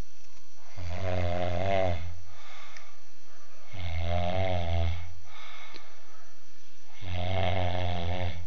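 A sleeping man snoring: three long, pitched snores, each about a second and a half, coming about every three seconds.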